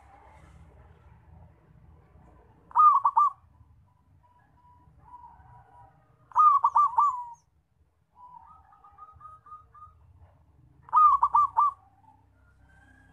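Zebra dove (perkutut) cooing loudly: three short phrases of three or four quick, hollow repeated notes, each about half a second long and spaced about four seconds apart, with fainter softer notes in between.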